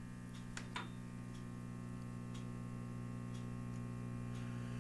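Silvertone Model 6050 tube radio's loudspeaker giving a steady mains hum that is not affected by the volume control, which the restorer takes for a bad filter capacitor. A few faint light ticks, roughly once a second, sit over the hum.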